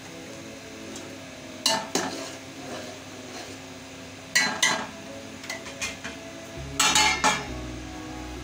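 Long metal spoon stirring watery meat gravy in an aluminium cooking pot, clinking sharply against the pot's sides several times, loudest in a quick cluster near the end.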